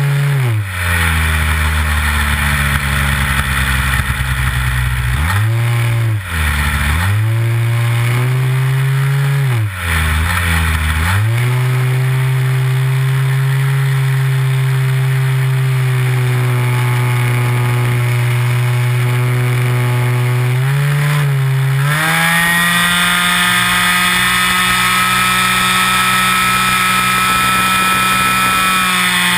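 Nitro glow engine of a Big Stik 60 RC airplane, heard close up from on board, running in flight. Its pitch drops sharply and comes back several times in the first ten seconds as the throttle is pulled back and opened. It then runs steadily and goes up to a higher, steady pitch about 22 seconds in.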